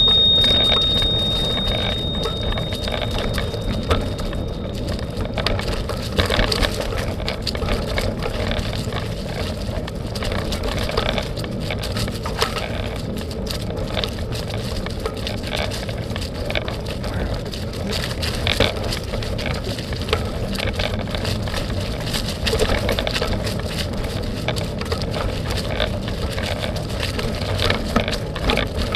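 Bike being ridden along a rough dirt trail: steady tyre and riding noise with frequent small knocks and rattles over the ground. A bell-like ring dies away over the first few seconds.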